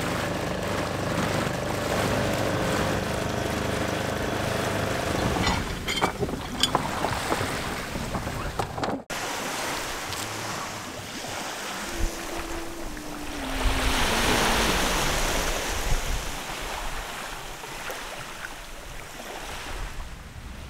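Outboard motor on an inflatable dinghy running at a steady pitch as it speeds over water, with water rushing along the tube. After a sudden break about nine seconds in, wind and small waves on the shore take over.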